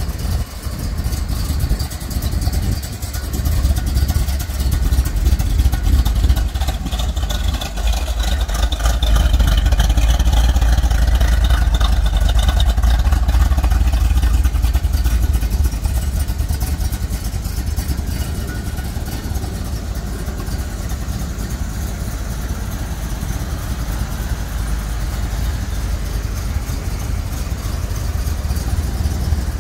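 1970 Plymouth Barracuda's 440 Six-Barrel V8, with triple two-barrel carburettors, running as a deep steady rumble. It is louder through the first half, then settles a little toward an idle.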